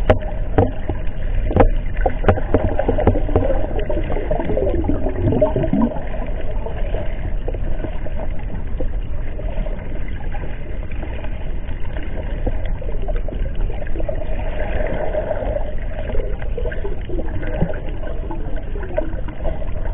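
Underwater sound picked up by a submerged camera: a steady, muffled low rush of water with gurgling bubble sounds and a few sharp knocks near the start.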